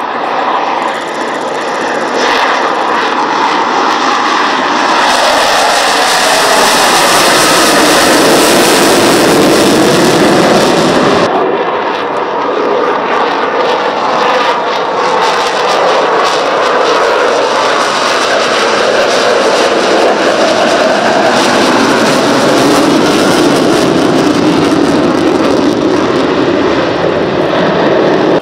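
Dassault Rafale M jet fighter flying its display: a loud, continuous jet roar whose pitch slides as it passes and turns, with the hiss dropping away suddenly about eleven seconds in.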